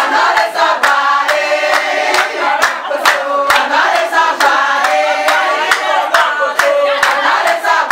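A group of women singing together, with steady rhythmic hand clapping.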